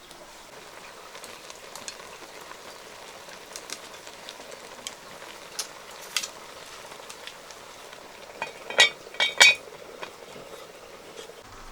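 Food sizzling as it fries in a pan, with scattered light clicks and, about three-quarters of the way through, a few loud ringing metal clinks of a utensil against the pan.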